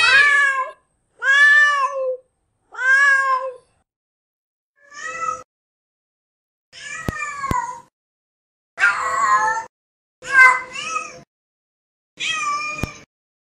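Female cat in heat calling: a series of about eight drawn-out, wavering meows, each about a second long, with short silent pauses between them. A few sharp clicks come in the middle and near the end.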